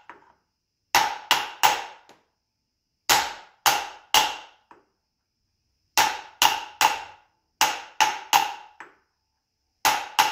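Brass hammer tapping a steel workpiece down onto the parallels in a milling-machine vise. The taps come in quick groups of three or four with short pauses between, each with a brief metallic ring. This counters jaw lift, but the part will not stay seated: it is rolling back up on the rod between the jaw and the part.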